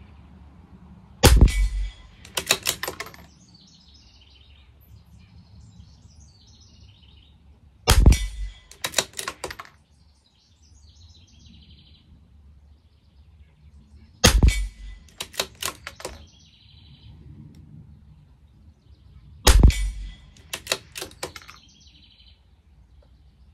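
Four shots from a CZ 457 LRP bolt-action .22 LR rifle, about six seconds apart. Each shot is followed by a quick run of metallic clicks as the bolt is worked to eject the case and chamber the next round.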